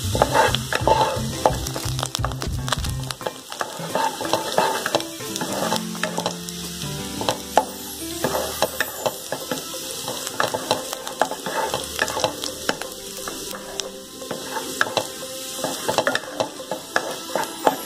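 Minced garlic sizzling in hot lard in a wok, stirred and scraped with a wooden spatula that clicks against the pan again and again. This is the garlic being fried until golden and fragrant, the first step of a stir-fry.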